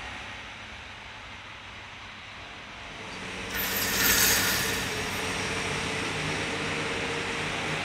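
Steady mechanical rumble and hiss, swelling about three and a half seconds in into a loud hissing rush, then settling into a steady noise with a low hum.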